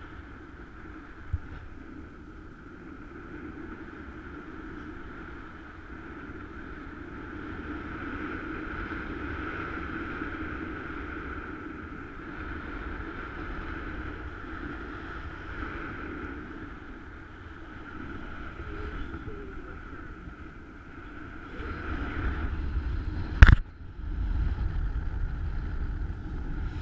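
Steady rush of airflow over the camera in paraglider flight. A sharp knock comes near the end, and heavier low buffeting follows it.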